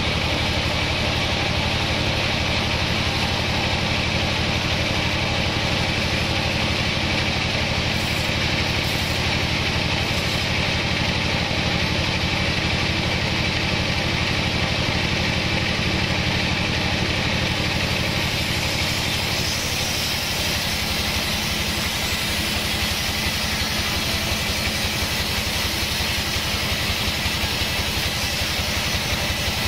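Band sawmill running steadily, its blade cutting through a log as the carriage feeds it past. About nineteen seconds in, a higher hiss joins the sound.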